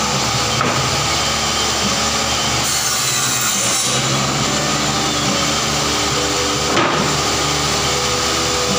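Table saw running and cutting plywood, the cutting hiss brightening for about a second midway. A single sharp knock near the end.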